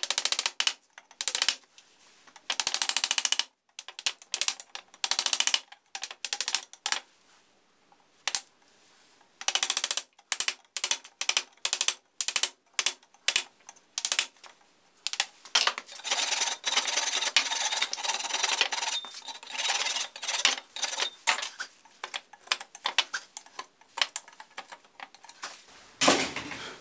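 Hand chisel paring the square tenon of an oak table stand: many short scraping strokes in irregular runs, some drawn out longer. There is a dull, heavier thud near the end.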